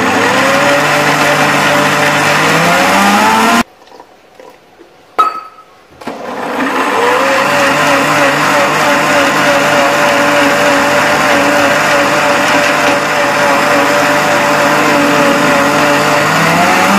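Electric mixer grinder with a stainless steel jar grinding dry coconut and a little water into a fine paste. The motor whine rises in pitch, then cuts off suddenly about three and a half seconds in. A single click sounds in the pause. About six seconds in the motor starts again, winds up and runs steadily, and its pitch rises again near the end.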